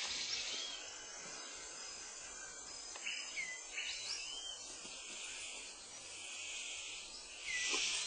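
Tropical rainforest ambience: a steady high buzzing of insects, with a few short whistled bird calls scattered through. The insect noise swells louder near the end.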